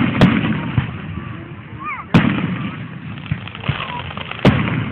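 Aerial firework shells bursting overhead. There are two loud bangs in quick succession at the start, another a little after two seconds and another near the end, each followed by a lingering rumble.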